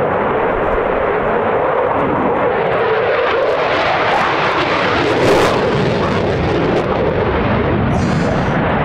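Dassault Rafale fighter's twin Snecma M88 turbofan engines: loud, continuous jet noise during a display pass. The sound is sharpest and brightest about four to five seconds in, then grows duller as the jet heads away.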